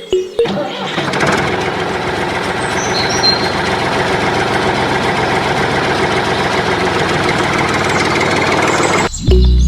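A small motor running steadily, starting just after the start and stopping abruptly about nine seconds in.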